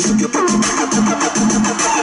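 Loud electronic music with a steady beat and fast hi-hat ticks played over a high-power car audio system with two Alphard DB-415 subwoofers, heard inside the car's cabin.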